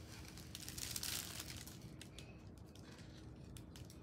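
Faint rustling and scratching of a black plastic prosthetic leg socket being handled and drawn on with a pen, loudest about a second in, then a few light clicks.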